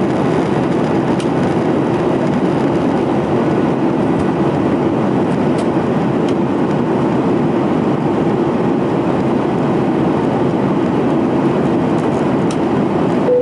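Boeing 737-800's CFM56-7B jet engines and airflow, a steady even roar with no rise or fall in level.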